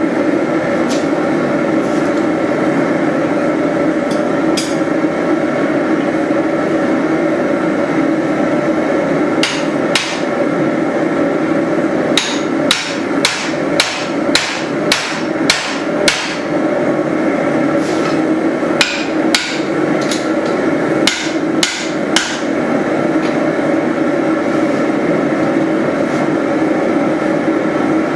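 Hand hammer striking a steel drift to open the eye of a hot hatchet head, metal ringing on metal. A few scattered blows come first, then a run of about eight strikes at roughly two a second, then a handful more, all over a constant steady noise.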